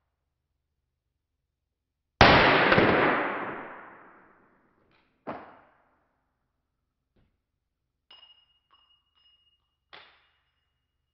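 A single shot from a long-barrelled Luger P08 (9 mm) fired with its holster stock shouldered: one loud crack with a long echoing decay over about two seconds. A fainter sharp click follows, then small metallic clinks, one leaving a faint ringing tone, and another click near the end.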